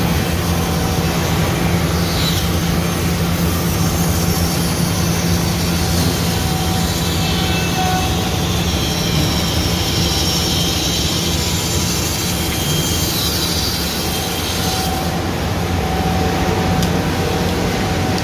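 Automatic CNC wood jigsaw running steadily, a low machine hum under dense mechanical noise, with a higher-pitched noise added from about two seconds in until about fifteen seconds in.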